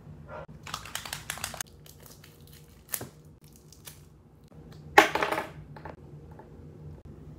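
Large gold Posca paint marker being handled: a quick run of rattling clicks about a second in, a single sharp click near three seconds, and a louder burst of clicks around five seconds as it is shaken and uncapped.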